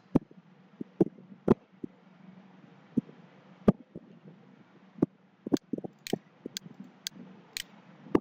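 Computer mouse clicking irregularly: about fifteen sharp clicks over several seconds, several in a quick cluster past the middle, over a low steady hum.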